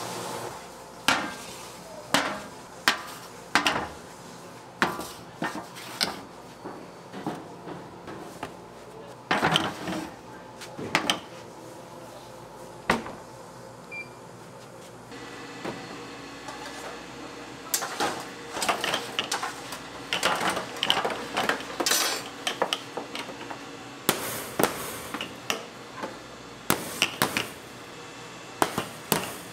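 Baking tools and dishes knocking and clinking on a hard work surface: irregular sharp taps, some bunched in quick clusters.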